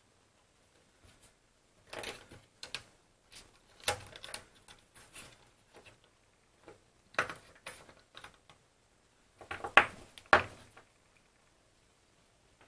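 Irregular clicks, taps and light rattles of small hard parts being handled on a workbench, coming in clusters with short pauses between them.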